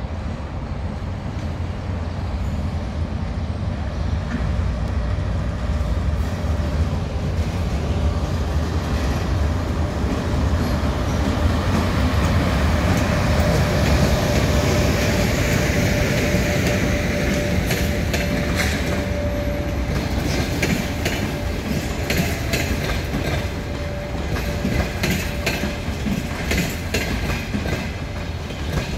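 EP1M electric locomotive and its passenger coaches rolling past slowly on arrival at a station, with a steady rumble of wheels on rail. A thin steady whine is heard as the locomotive goes by near the middle. In the second half the coaches' wheels click over the rail joints.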